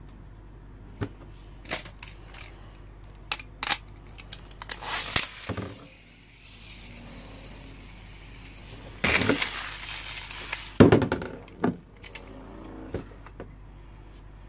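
Metal-rimmed battle spinning top knocking and scraping around a plastic basin. Scattered sharp clicks, and two longer rattling stretches about five seconds in and from nine to eleven seconds in; the second ends in a loud knock.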